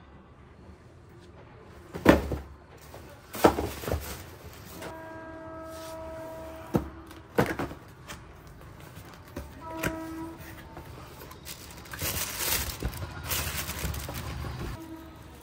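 Cardboard shoeboxes being handled, with several knocks and thumps, then tissue paper crinkling near the end as a shoe is unwrapped from its box. In between, a horn sounds once for nearly two seconds and then briefly.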